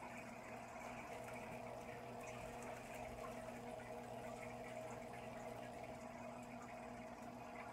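Aquarium aeration and filtration running: steady bubbling, gurgling water with a constant low hum underneath.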